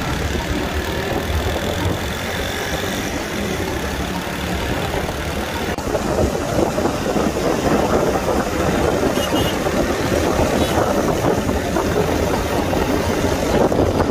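A motor vehicle's engine running steadily, growing louder and rougher about six seconds in.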